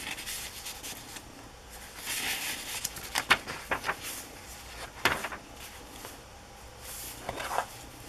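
Paper pages of a handmade journal being turned and handled: soft rustles about two seconds in and again near the end, with a few sharp crisp flicks of paper in between.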